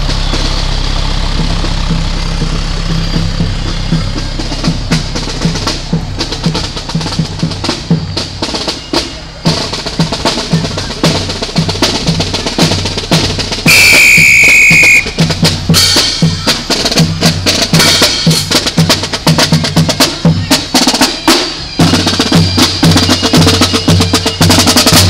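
Marching band drum line playing a cadence on snare and bass drums as it approaches, after a fire truck's engine rumbles past in the first few seconds. About 14 seconds in, a loud high whistle blast lasts about a second.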